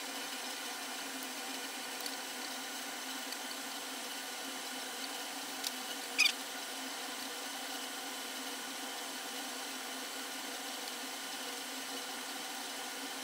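A steady hum made of several fixed tones, with two small clicks and a brief squeak about six seconds in.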